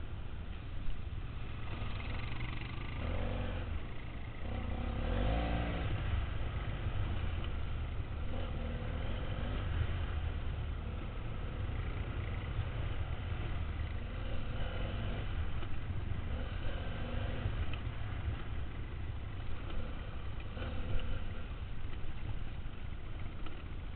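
Dual-sport motorcycle engine running under load, its pitch rising and falling as the rider accelerates and backs off over a dirt track, with heavy wind buffeting on the helmet-mounted microphone.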